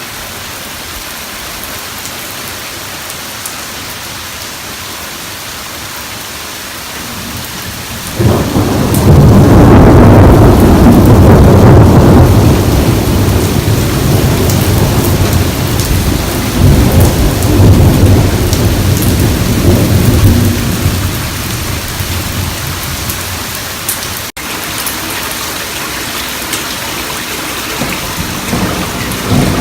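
Heavy rain pouring steadily. About eight seconds in, a loud thunderclap breaks out and rumbles on for about twelve seconds before fading back under the rain; another loud peal of thunder begins at the very end.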